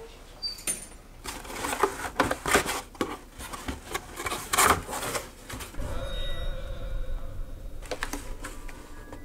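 Clatter of objects being handled and shifted about, a quick run of sharp clicks, knocks and scrapes, followed by a softer rustle. A few held music notes come in near the end.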